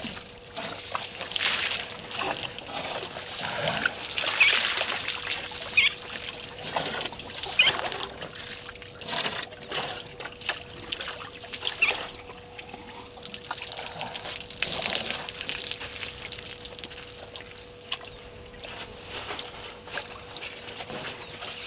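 African elephants drinking at a waterhole: irregular splashing and trickling of water as they draw it up in their trunks and squirt it into their mouths, over a faint steady hum.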